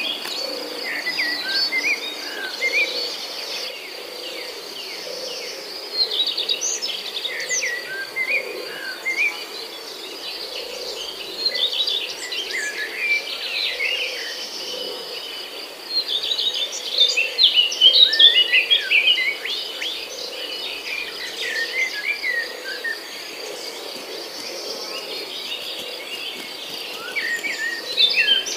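Many birds chirping and calling over a steady, high insect trill.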